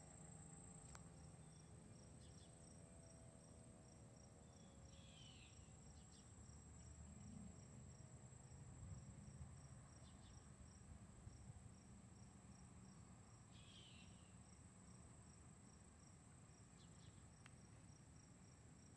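Faint insects: a steady high-pitched trill with a regular chirp about twice a second, typical of crickets. The last faint tail of a siren winding down fades out in the first second, and two short higher calls come about 5 and 13 seconds in.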